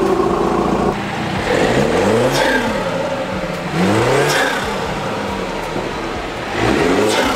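BMW 330i's B48 turbocharged 2.0-litre four-cylinder engine, fitted with a new larger-diameter charge pipe, revved three times in place from idle. Each rev rises and falls in pitch.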